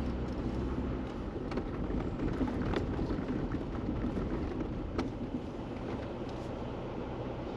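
Jeep driving slowly along a rough dirt trail: a steady low engine hum and tyre rumble, with scattered small rattles and one sharper knock about five seconds in.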